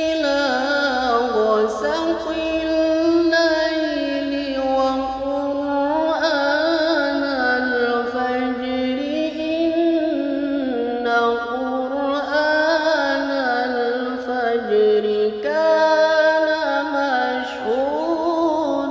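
A solo voice reciting in melismatic Quranic style (tilawah), drawing out long ornamented notes that wind up and down in pitch, with a few short breaks. It is a reciter's voice recovering after a flu and cough.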